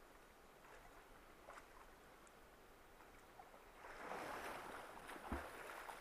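Near silence for the first few seconds. About four seconds in, a steady rush of flowing water comes in, with a soft knock a little after five seconds.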